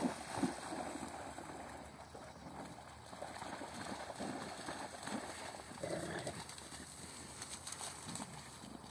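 A mixed-breed dog and a pit bull running and playing in wet grass, with scattered short, faint sounds from their movement and play every second or so.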